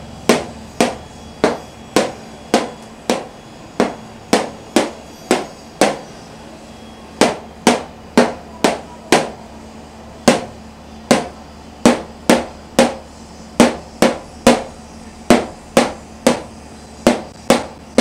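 Marker tapping on a whiteboard in a steady rhythm, sharp knocks about two a second, with a short pause about six seconds in.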